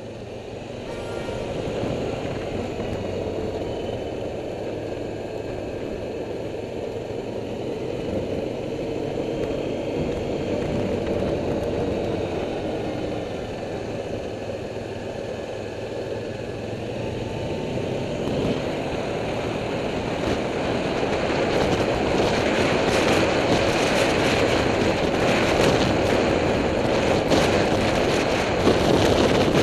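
Quad bike (ATV) engine running steadily under way, with road and wind noise on the onboard microphone; the sound grows louder and rougher in the second half.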